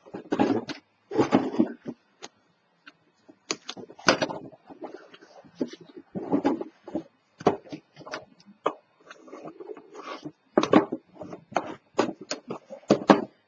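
Cardstock being handled and pressed down on a cutting mat: irregular rubbing, sliding and tapping of paper, in short scrapes and clicks.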